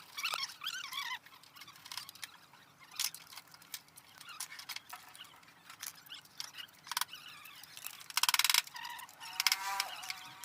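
Ratchet wrench loosening the clutch cover bolts of a Bajaj Platina 100's engine: scattered clicks and knocks of the tool on the cover, then two quick runs of ratchet clicking near the end.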